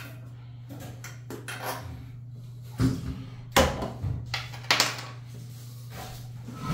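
A handful of sharp knocks and clatters from handling a toilet and its seat while working at the toilet's base, the loudest bunched together near the middle, over a steady low hum.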